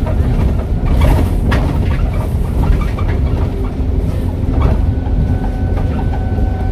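ADL Enviro 400H double-decker bus, converted from hybrid to diesel, running under way: a heavy low engine and road rumble with frequent knocks and rattles. About five seconds in, a steady high whistle comes in, the turbo whistle named in the title.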